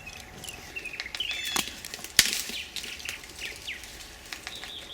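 Birds calling with many short, high chirps, most falling in pitch, and a sharp click a little over two seconds in.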